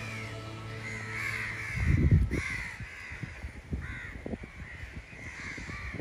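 A flock of crows cawing, many harsh calls overlapping and repeating. About two seconds in there is a brief low rumble, the loudest moment.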